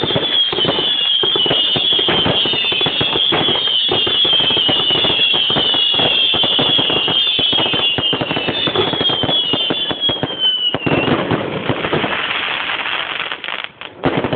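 A 100-shot consumer finale cake firing a rapid barrage of shots, each with a screaming whistle that falls in pitch, many overlapping. About eleven seconds in the whistles stop and the sound turns into a steadier noise that drops out briefly near the end before another burst.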